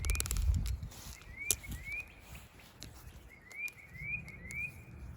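A balisong trainer being handled and flipped, giving a few sharp clicks after a brief handling rumble. Over it, short rising bird chirps repeat in runs of two or three.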